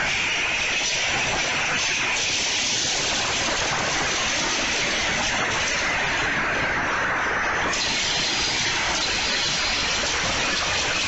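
Pachislot machine sound effect from Another God Hades: a loud, steady rushing noise like gushing water. The highest part of the rush drops away for a couple of seconds past the middle, then comes back suddenly.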